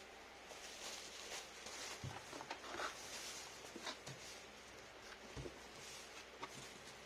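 Faint handling noise of packing: scattered light clicks and rustles, with two dull thumps, about two seconds in and again a little past five seconds.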